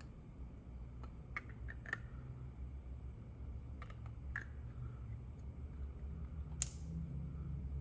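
A few scattered clicks of computer keys or mouse buttons over a low steady hum, with one sharper click about two-thirds of the way through.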